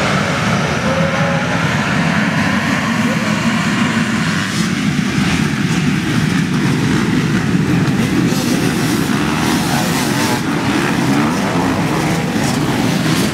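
A pack of vintage motocross bikes running together at the start line, then accelerating away as one dense engine noise and passing close by.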